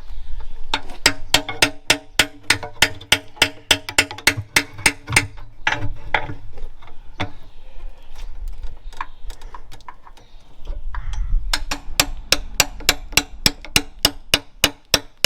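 Hammer blows on steel, each ringing, at about three to four a second in two long runs, with a few scattered strikes between them.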